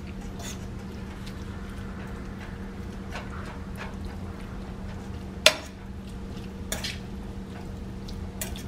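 Metal fork stirring and scraping lobster meat sautéing in butter in a skillet, with a few sharp clicks of the fork against the pan, the loudest about five and a half seconds in. A steady low hum runs underneath.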